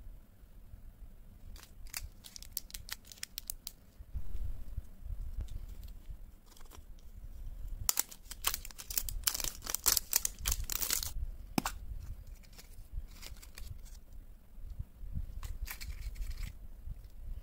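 Foil wrapper crinkling and tearing as it is peeled off a Kinder surprise egg, in a dense run of crackles about eight to eleven seconds in. Scattered clicks and crinkles from handling the plastic toy, capsule and candy packets come before and after.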